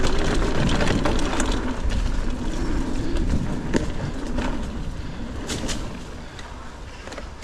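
Mountain bike being ridden over a dirt trail: a loud rumble of tyre noise and wind on the microphone, with a few sharp knocks and rattles from the bike. It eases off near the end.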